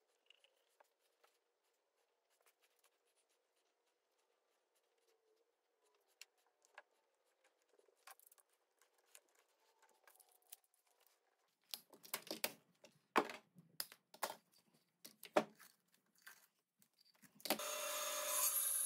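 Sharp knocks and clacks of wooden box parts and quick-grip bar clamps being handled on a workbench, clustered in the middle of the stretch. Near the end a bandsaw starts and runs with a steady whir.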